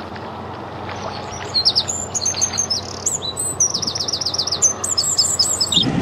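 A small songbird singing: quick runs of high, downward-sweeping chirps starting about a second and a half in, over a steady background hiss.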